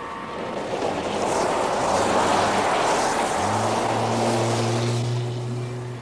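A car driving past on a gravel drive. The noise of its tyres and engine swells as it comes near and fades as it moves off. A low steady hum comes in about two seconds in.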